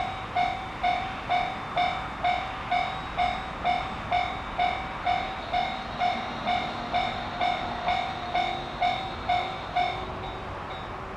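Japanese railway level-crossing electronic warning bell in the standard JR tone, dinging about twice a second, with the running noise of a train passing underneath. The bell stops about ten seconds in, leaving the train noise.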